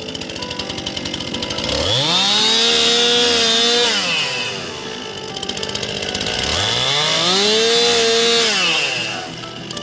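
Stihl MS 261 C two-stroke chainsaw cutting logs into firewood rounds. Twice it revs up from idle, holds high under load for about two seconds, then drops back to a ticking idle. It starts rising again at the very end.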